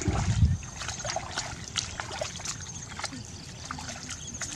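Legs wading and sloshing through shallow muddy water, with many short wet squelching clicks as feet pull out of the mud, and a heavier low rush right at the start.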